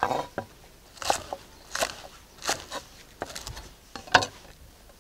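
Kitchen knife slicing green onions on a wooden cutting board: a series of crisp chops, unevenly spaced, roughly one every half second to a second.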